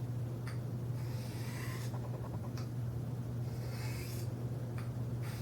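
Knife blade being drawn by hand across a sharpening surface, giving slow scraping strokes about two seconds apart with light clicks between them, as the edge is sharpened and stropped. A steady low hum runs underneath.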